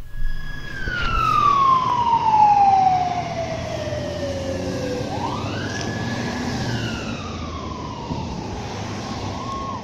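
Ambulance siren wailing. Its tone falls slowly in pitch for about four seconds, rises quickly about five seconds in, then settles lower to a steady tone near the end, over low traffic noise.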